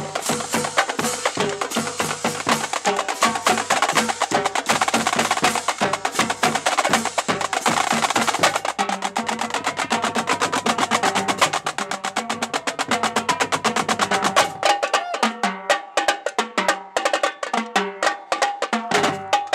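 Marching drumline playing a fast cadence together on snare drums, tenor drums and pitched bass drums. About fifteen seconds in, the bass drums drop out, leaving the snares and tenors.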